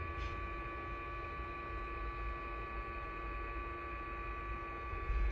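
Electric bilge pump running submerged in bilge water with a steady hum as it pumps the water out.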